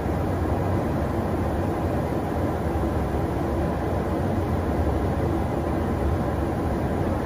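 Steady, deep roar of engine and airflow noise inside a KC-135 Stratotanker's boom pod in flight, with the refueling boom connected to an F-16.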